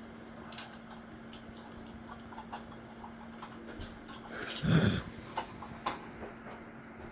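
Sleeping pug giving one loud snort a little past halfway, against a steady low hum, with scattered light clicks between.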